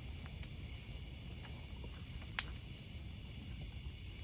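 A steady chorus of night insects such as crickets over a low rumble, with a few faint clicks and one sharp crack a little past halfway.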